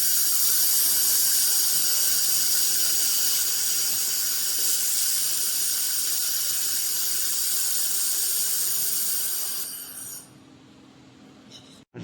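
Handheld laser head firing: a loud, steady, bright hiss that cuts off about ten seconds in.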